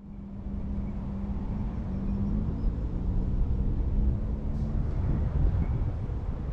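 A steady low engine hum over rumbling outdoor noise, with the hum fading out about five seconds in.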